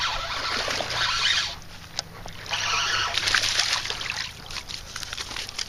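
Water splashing in two long bursts with scattered sharp slaps, as a bass thrashes at the surface of the pond.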